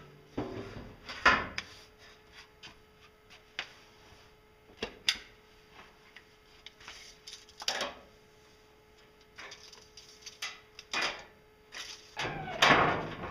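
Irregular clicks, knocks and clatters of thin sheet metal being handled and moved about on a wooden workbench, with plastic sheeting rustling at the start. The loudest, longest clatter comes near the end.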